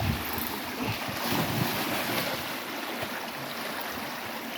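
Stream water rushing steadily, with some wind on the microphone.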